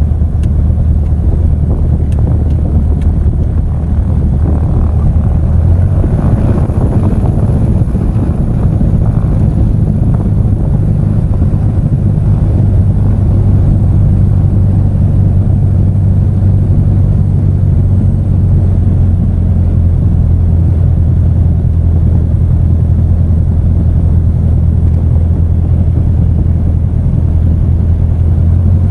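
Piper Arrow's piston engine and propeller running at low taxi power, heard inside the cabin: a steady low drone whose pitch steps up slightly about six seconds in.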